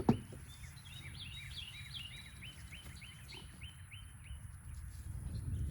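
A songbird singing a run of about a dozen short repeated notes, roughly three a second, over a steady low rumble, with a single thump right at the start.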